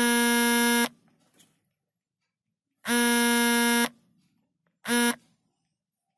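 A loud electric buzzing tone sounds three times: two buzzes about a second long, roughly two seconds apart, then a short one.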